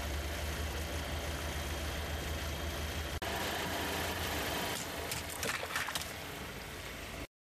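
Car engine idling with a steady low hum as the tyre rolls over toys. After a cut, the tyre rolls onto a row of water balloons, which burst with a quick cluster of sharp pops and splashes near the end.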